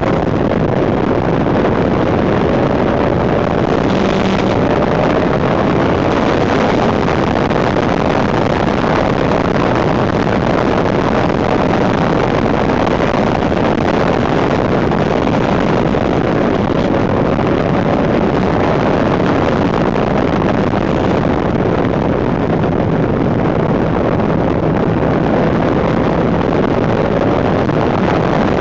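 Wind rushing over a handlebar-mounted camera's microphone on a moving Suzuki GSX750F Katana, loud and steady, with the bike's inline-four engine running underneath. The engine's pitch rises slowly a few times.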